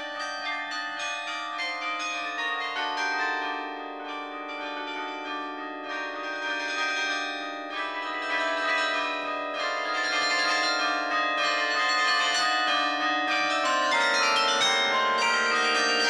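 Carillon bells playing a melody, struck from the baton clavier, with many notes ringing on over one another. The playing grows louder about halfway through.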